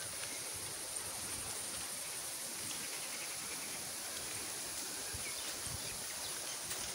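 Steady outdoor rural ambience: breeze rustling the garden's leaves under a constant high insect drone.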